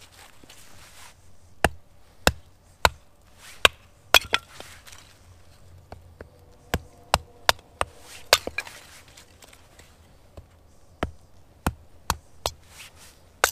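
Hatchet splitting kindling on a wooden chopping block: about seventeen sharp chops in three short runs, with brief pauses between.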